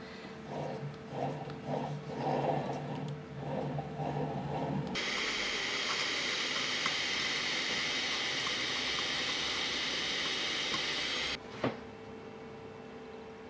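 Hand-held rotary tool with a diamond burr running steadily against steel, grinding a decorative texture into the part, from about five seconds in until it stops near the end. Before it, a low hum with irregular soft knocks.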